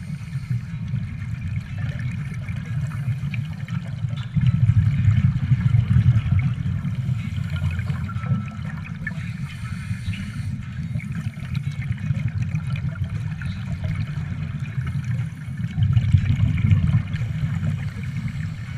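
Scuba regulator exhaust bubbles gurgling and rumbling, heard underwater, with two louder, longer bursts of exhaled bubbles: one about four seconds in and one around sixteen seconds in.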